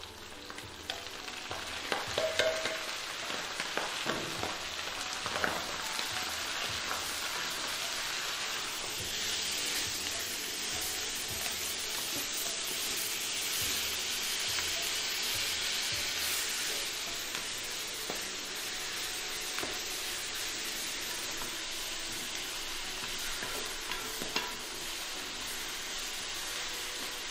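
Shredded cabbage goes into a hot stainless-steel wok of pork ear and sizzles. A wooden spatula stir-fries it, knocking and scraping against the pan a few times in the first seconds. After that the frying sizzle runs steadily.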